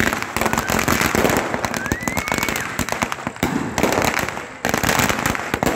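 Firecrackers packed into a burning Ravana effigy going off as rapid, continuous crackling bangs, with a brief let-up about four and a half seconds in.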